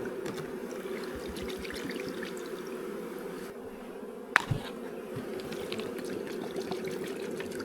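Honeybees buzzing as a steady hum from a freshly installed package colony, with one sharp knock about four seconds in.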